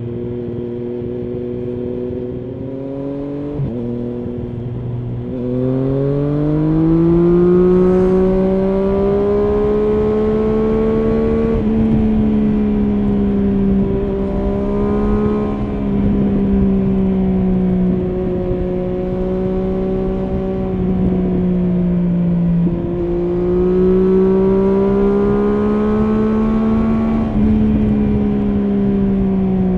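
Triumph Street Triple S inline three-cylinder engine through an SC-Project SC1-R slip-on exhaust with its dB killer fitted, heard on board while riding. It runs low and steady at first, climbs in revs from about five seconds in, then holds a fairly steady pitch, with short breaks and dips at gear changes.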